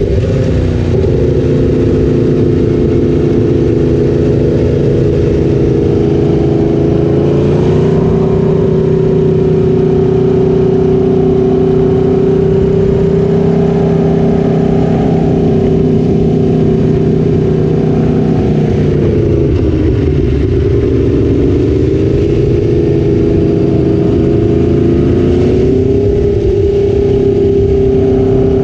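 Sport motorcycle engine running under load on a fast ride, its pitch holding steady for long stretches and dropping and climbing again several times as the throttle is rolled off and back on through the bends.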